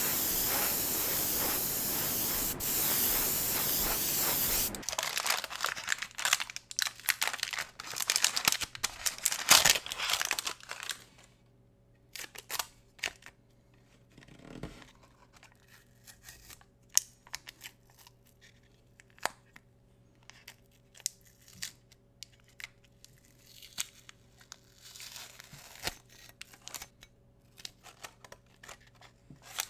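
Airbrush spraying paint with a steady hiss that cuts off about five seconds in. Then masking tape being peeled and torn off a painted diecast model car body, with crinkling of masking paper: dense and loud at first, then scattered quieter crackles.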